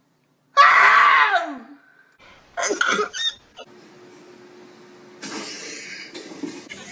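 A person sneezing: a drawn-out vocal wind-up that falls in pitch for about a second, then a short, sharp burst about two and a half seconds in.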